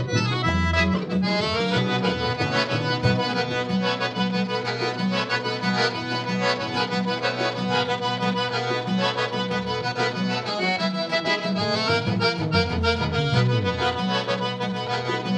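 Accordion playing an instrumental solo passage of a fast gaúcho vaneira dance tune, with a tambourine keeping the beat.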